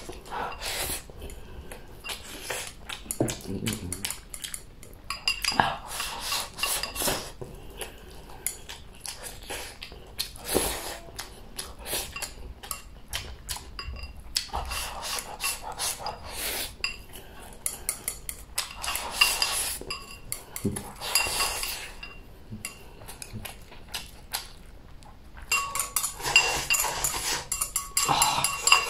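Chopsticks clicking and scraping against a ceramic bowl as rice is shovelled in, with close chewing and slurping. The sounds come in irregular bursts and grow louder and busier near the end.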